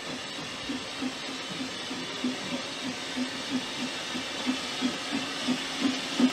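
Narrow-gauge steam tank locomotive working slowly with a goods train, its exhaust chuffing in an even beat of about three a second over a steady steam hiss, growing louder as it approaches.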